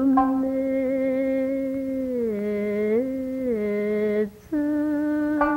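A voice singing long, drawn-out held notes that step down and back up in pitch, breaking briefly near the end before a new held note. A plucked string instrument sounds near the start and again near the end.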